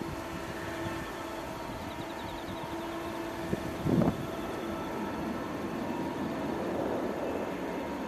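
Boeing 777-200ER's two turbofan engines running at low power as the airliner taxis: a steady whine with a hum beneath. A brief loud thump about four seconds in.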